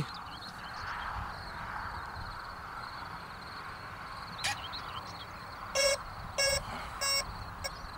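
Short electronic beeps from the RC jet's electronics, most likely its speed controllers sounding their start-up cell-count beeps: a click about four and a half seconds in, then three beeps about two-thirds of a second apart and a shorter, fainter fourth, over a faint steady background of outdoor hiss.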